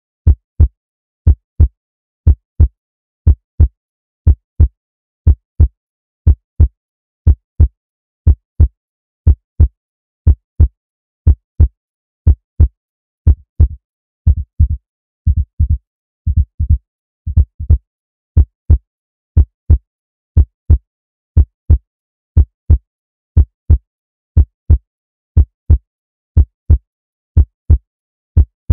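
Recorded heartbeat sound effect: loud, low lub-dub double thumps about once a second. A little under halfway through, the beats briefly turn irregular and crowded for a few seconds before the steady rhythm returns.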